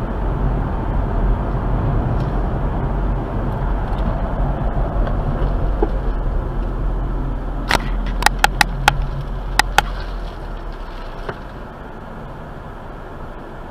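Steady road and engine rumble inside a moving car's cabin, recorded by a dashcam. A quick, uneven run of about seven sharp clicks comes about eight seconds in, and the rumble eases off over the last few seconds.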